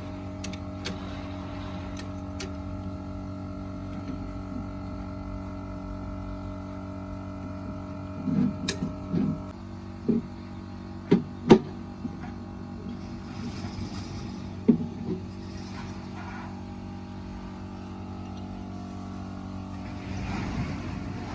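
A steady mechanical hum with metal knocks and clanks, a few of them in quick succession about eight to twelve seconds in.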